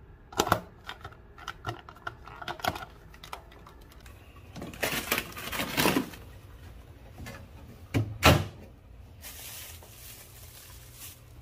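Plastic lid clicking shut onto a plastic food container, several snaps in a row, then the container scraping as it slides onto a freezer shelf. Two heavy thuds about eight seconds in as the small freezer compartment door is shut.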